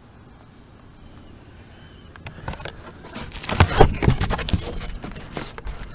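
Cardboard shipping box being handled and opened, with irregular scraping, crackling and rustling of cardboard and packing material starting about two seconds in.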